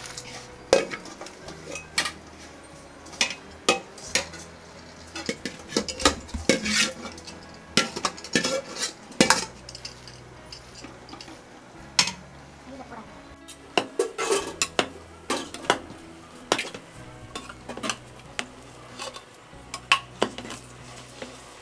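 A metal ladle scraping and knocking against a big metal pot as a large batch of fried rice is stirred and tossed, giving irregular clinks and scrapes.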